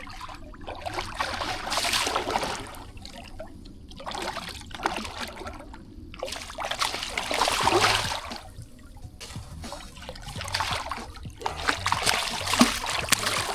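Water splashing and sloshing in three surges, each a couple of seconds long, with sharp little splats: a hooked catfish thrashing at the surface as it is brought in beside the kayak.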